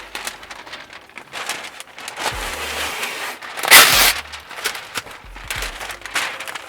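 Masking paper crinkling and rustling as it is handled and pressed into place, with a loud short rip about four seconds in, as of tape or paper being pulled or torn.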